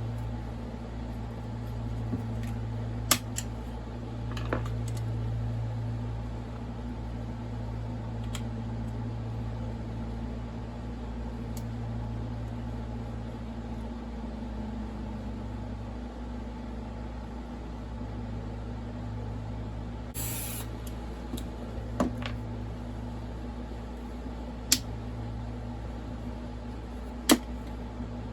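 A steady low hum, with scattered sharp clicks and taps of hand tools and metal parts as a Stihl MS460 chainsaw's clutch and chain-brake area is taken apart. A brief hiss comes about twenty seconds in.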